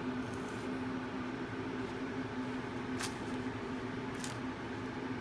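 Steady mechanical hum with a constant low tone, like a fan or air-conditioning unit running, with a few short, faint, high-pitched ticks: a couple near the start, one about three seconds in and one about four seconds in.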